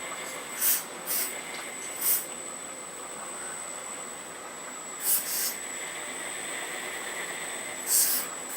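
Earth Digger 4200XL RC hydraulic excavator working, its hydraulic pump running with a steady high whine and hiss. Five short, louder hissing bursts come through it, the first three within the first two seconds or so, one about five seconds in and one near the end.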